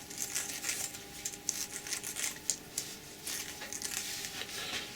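Soft, irregular rustling and light scraping over a faint steady hum.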